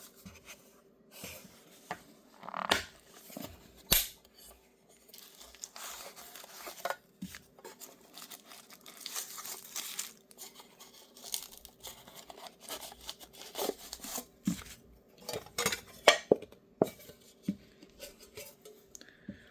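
Pocket knives and a metal tobacco tin being handled: irregular light clicks, knocks and small metal clinks with rustling between, a few sharper knocks standing out.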